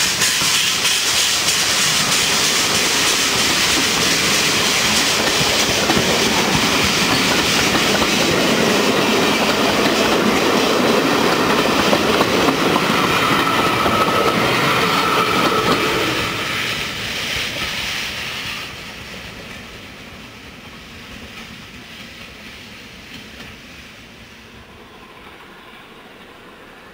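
Two rebuilt Bulleid West Country class Pacific steam locomotives double-heading a passenger train close by, with the coaches' wheels clattering rhythmically over the rail joints as they follow. The sound fades away about two-thirds of the way through as the train draws off.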